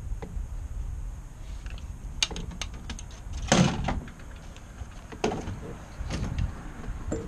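Inside the cockpit of a Piper Pawnee tow plane moving on grass: a steady low engine rumble with a string of knocks and rattles, the loudest a short clatter about three and a half seconds in.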